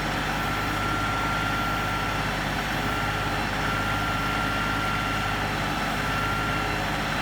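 LS XR3135 compact tractor's three-cylinder diesel engine running steadily, with a thin, steady high-pitched whine over it.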